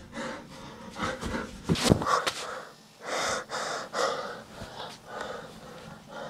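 A person breathing heavily close to the microphone, several loud breaths in the second half, after a couple of sharp knocks about two seconds in.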